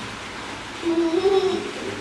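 Baby macaque giving one short whining call about a second in, rising a little in pitch: a begging cry at being denied a toy.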